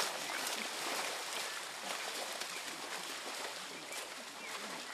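Shallow muddy water splashing and sloshing as soldiers crawl on their bellies through it.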